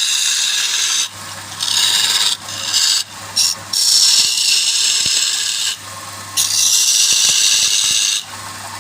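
Turning tool worked against wood spinning on a lathe in repeated passes, a loud rasping hiss lasting one to two seconds per pass, with a low hum between passes.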